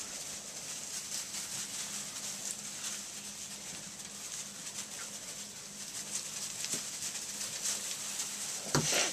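Retriever puppies scuffling and pattering through loose wood shavings as they play, with a short puppy yelp near the end.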